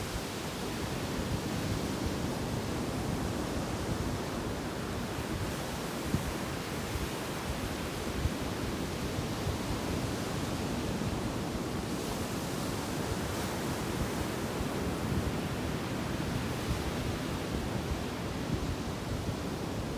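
Sea surf washing onto a beach: a steady, unbroken rush of water.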